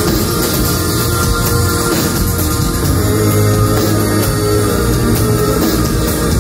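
Loud live rock music from a band on stage, with electric guitar, heard from within the audience.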